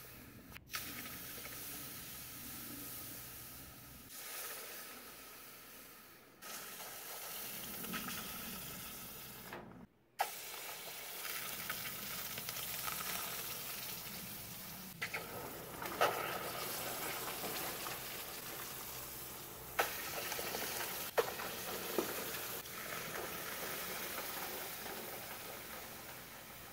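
Hot copper-alloy ingots being quenched in a tub of water, sizzling steadily as they cool. A few sharp metallic knocks come through, from the ingots and tongs striking the steel tub.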